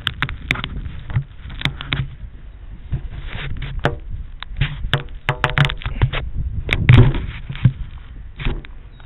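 Handling noise from a body-worn action camera: fabric rubbing over the microphone with irregular clicks and knocks, a low rumble underneath, and one heavier thump about seven seconds in.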